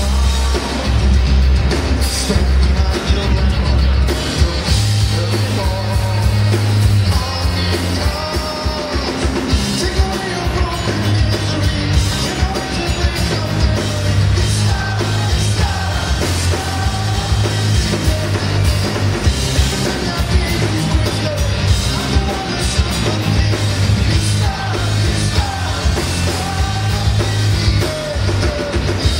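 Cello metal band playing live: amplified cellos, a drum kit and a lead singer, loud and continuous.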